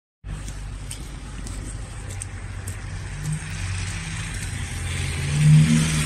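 A car engine running on a slushy street, growing louder to a peak about five and a half seconds in, with wet tyre hiss on the slush rising near the end.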